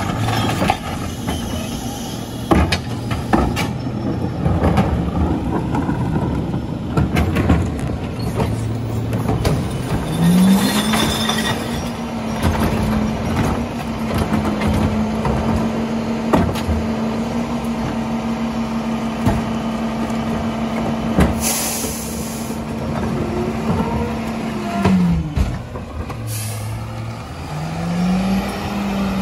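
McNeilus rear-loader garbage truck collecting recycling. Plastic carts are tipped into the hopper with clattering knocks over the diesel idle. About ten seconds in, the engine revs up and holds a steady high idle for about fifteen seconds while the hydraulic tippers and packer run, with two sharp hisses of air. The engine then drops back and revs again as the truck pulls away.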